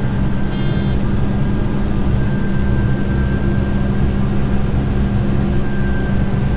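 Steady drone of a John Deere 9986 cotton picker's engine and machinery, heard from inside the cab. There is a short high electronic beep about half a second in.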